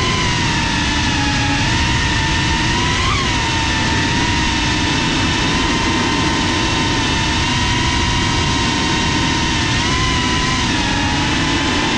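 FPV drone's brushless motors and propellers whining steadily over wind rush, recorded by the GoPro mounted on the drone. The pitch jumps briefly about three seconds in and wavers again near the end as the throttle changes.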